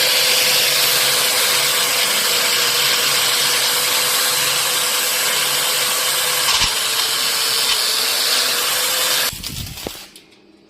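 A power tool running steadily at full speed with a constant whine, stopping abruptly about nine seconds in.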